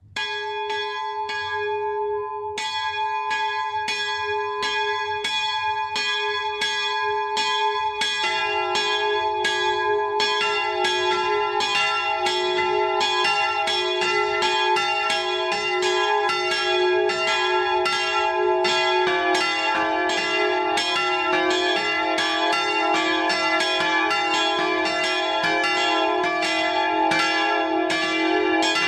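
The three church bells tuned d2, f2 and g-sharp2, cast by Fischer of Trnava, start ringing: one bell sets off right at the start, a deeper bell joins about eight seconds in and the deepest about nineteen seconds in, building into a full three-bell peal of overlapping strokes.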